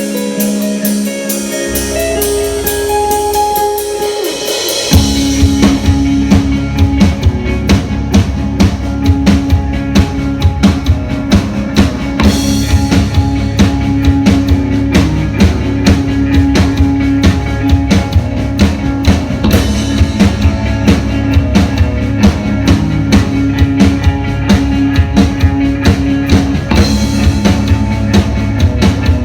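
A rock band playing live: guitar alone at first, then about five seconds in the drums and bass come in together with a steady, driving beat.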